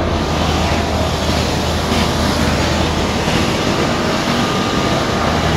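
Delhi Metro train standing at an underground platform: a loud, steady hum and rumble with no distinct knocks or calls.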